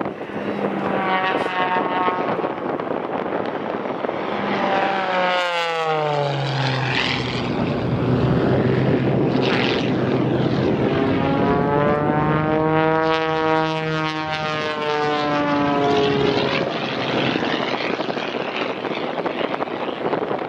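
A propeller-driven aerobatic race plane's piston engine droning as it flies the course. Its pitch slides sharply down about five seconds in, then rises and falls again in a long arc later on.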